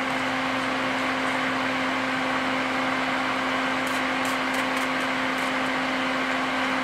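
120 mm AC cooling fan running steadily, a constant whir of moving air with a low hum, as it pulls air and flux smoke through a vent filter.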